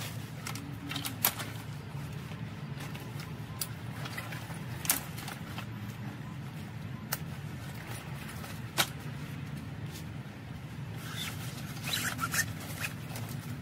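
Handling noise of a padded fabric rifle scabbard, a Kylebooker RS04: scrapes and rustling of the fabric and straps, with a few sharp clicks about 1, 5 and 9 seconds in and a crackly scraping near the end as the scabbard is lifted. A steady low hum runs underneath.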